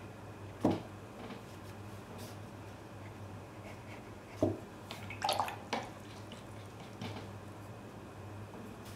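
Watercolour brush being handled between strokes: a couple of soft knocks, then a short spell of clinking and splashing about five seconds in, typical of a brush being rinsed in a water jar, over a low steady hum.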